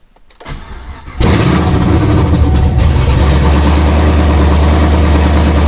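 Supercharged 427 LSX V8 with a big custom cam and open headers cranking briefly, then catching about a second in and running loud and steady. This is its first start after a rebuild.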